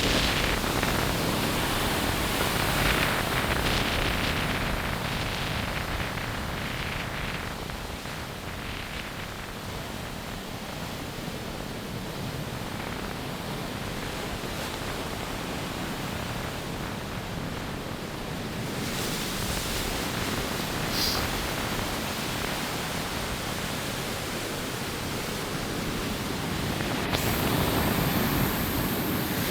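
Storm wind rushing over the microphone and ocean surf washing below, a steady roar that gusts louder at the start and again near the end.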